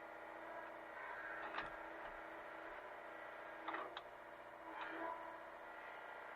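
Hitachi mini excavator's engine running steadily, with four short, sharp knocks about one and a half, three and a half, four and nearly five seconds in.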